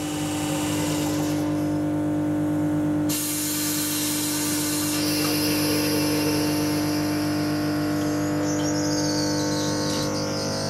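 Class 334 electric multiple unit pulling slowly away, its traction equipment giving a steady electric whine made of several fixed tones. The high tones switch in steps about one, three and five seconds in, and near the end a high tone falls and then rises.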